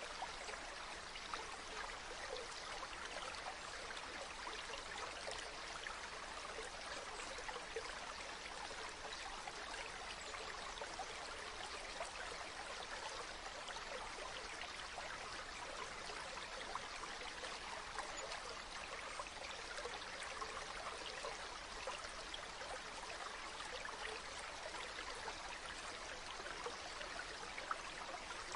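Stream of running water flowing steadily, a continuous babbling and trickling.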